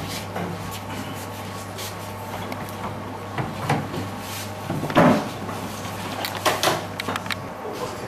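Scattered knocks and clunks as stage equipment and furniture are handled and set down, the loudest about five seconds in, over a steady low hum.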